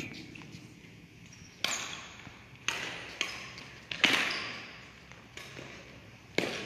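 Badminton rackets striking a shuttlecock back and forth in a rally: sharp cracks roughly once a second, each echoing in a large hall. The loudest hit comes about four seconds in.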